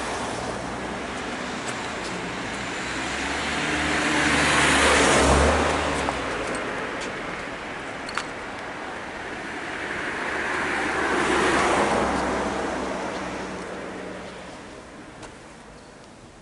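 Two cars passing by one after the other, the first loudest about five seconds in, the second about eleven and a half seconds in, with tyre and engine noise swelling and fading each time.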